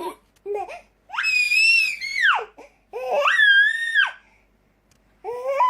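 A young child's voice giving two long, very high-pitched squeals, the first ending in a falling glide, with short voice sounds just before them.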